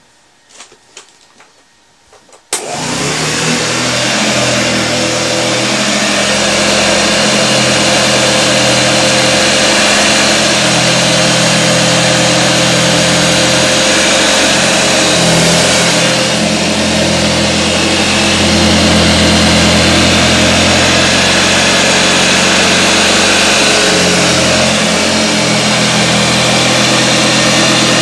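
Hoover Junior model 1346 upright vacuum cleaner switched on about two and a half seconds in, then running steadily as it sweeps salt from the carpet with its beater brush roll. Its motor sounds lower-pitched than a Junior should, which the owner suspects means the motor may not be the original.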